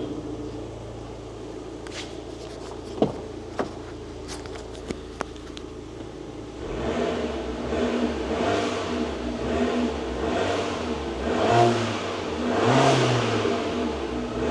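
Abarth 500's 1.4-litre turbocharged four-cylinder idling through its original exhaust, with a few light clicks in the first few seconds. About seven seconds in it is revved in several blips, the last two the loudest. This is the stock, corroded exhaust before a cat-back replacement: it doesn't sound great.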